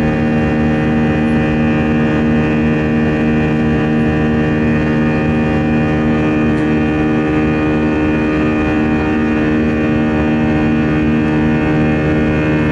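CFM56 turbofan engine of an Airbus A319 at climb power after takeoff, heard from the cabin beside the engine. It is a loud, steady drone made of many held tones over a rumble, unchanging throughout.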